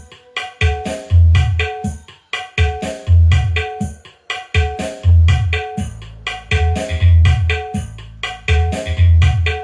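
Recorded music with a heavy, deep bass beat, quick hand-drum strokes and a melody, played back loud through a PA sound system fed by a dbx 224XL 4-way crossover and a power amplifier.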